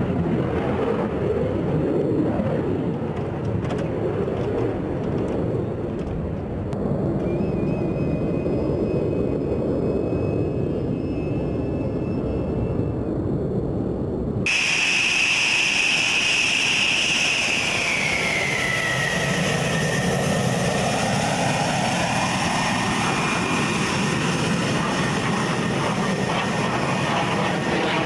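F-16 fighter jet engine running: a steady low rumble, then, after a sudden change about halfway, a loud high whine that drops in pitch over a rushing jet roar.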